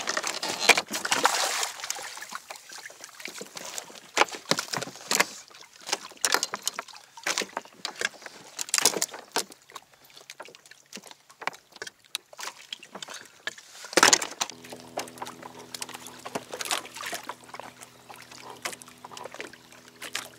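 Water slapping and sloshing against a kayak's hull, with irregular knocks and clicks. A loud knock comes about fourteen seconds in, after which a steady low hum sets in under the splashes.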